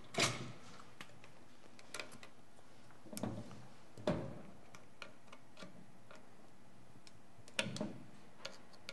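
Sparse clicks and light knocks of a screwdriver working the screws on a metal avionics case. A few louder taps come about a quarter second in, between three and four seconds in, and again near the end.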